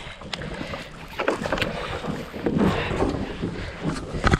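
Handling noise in a plastic kayak while fighting a hooked bass with rod and reel: irregular knocks and scrapes, with water sloshing and wind on the microphone, and a sharper knock near the end.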